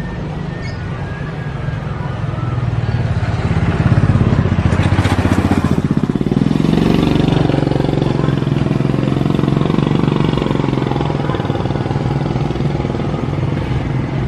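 Motor vehicle engines running and passing. The sound builds to its loudest about four seconds in, then slowly fades.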